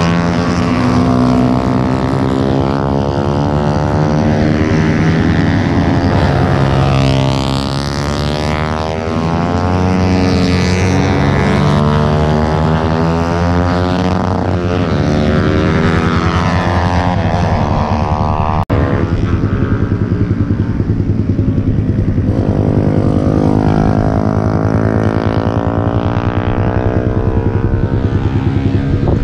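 Motorcycle engines running: a steady engine note underneath, with a racing motorcycle's engine rising and falling in pitch as it is revved through the gears around the track. A brief dropout about two-thirds of the way through marks an abrupt cut, after which a steady engine note carries on.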